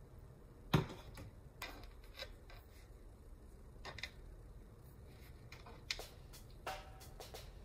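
A metal spoon knocks chicken filling onto a square of dough on a cutting board, with one thump about a second in, followed by scattered light clicks and taps as hands handle and fold the dough.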